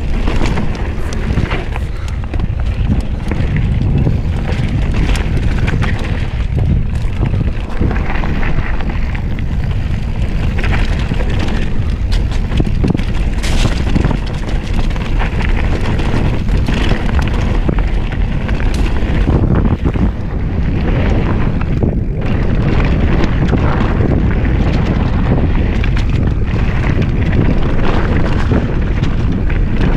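Wind buffeting the microphone over the rumble of mountain bike tyres on a dry dirt trail at speed, with frequent clicks and rattles from the bike over rough ground.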